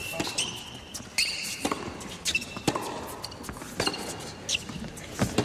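Tennis rally on an indoor hard court: sharp racket strikes and ball bounces come one after another every half second to a second. Short high squeaks of court shoes are heard between them as the players move.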